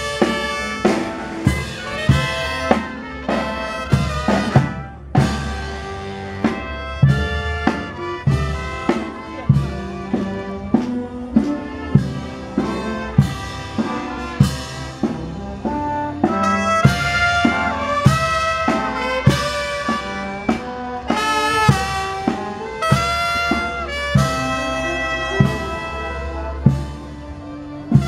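Brass band playing, with trumpets and trombones holding sustained notes over a steady drum beat struck about every two-thirds of a second.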